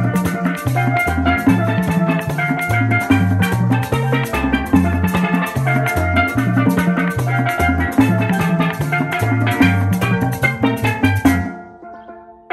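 Instrumental tropical Latin band music with a bouncing bass line, busy percussion and a bright melody. Near the end it breaks off and fades briefly.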